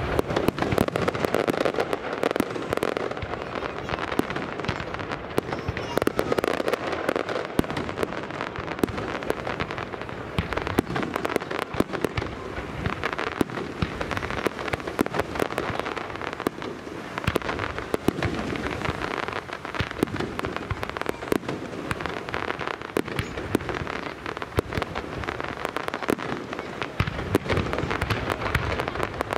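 Pirotecnia López's aerial fireworks display: a dense, unbroken barrage of shells launching and bursting, many bangs close together over a constant crackling.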